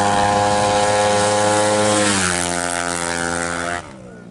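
Tuned 200cc automatic-scooter drag bike engine at full throttle, holding one steady high pitch; about two seconds in the pitch drops as the rider backs off, and the sound falls away abruptly near the end.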